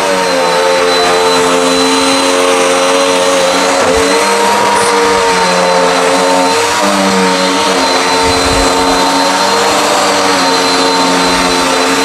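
Dirt Devil Endura Max upright vacuum cleaner running steadily as it is pushed over carpet, a loud motor hum with a high whine whose pitch shifts slightly a couple of times.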